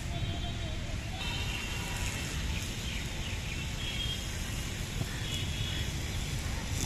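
Outdoor ambience at a football pitch: a steady low rumble of wind on the microphone, with birds chirping and a faint distant shout right at the start.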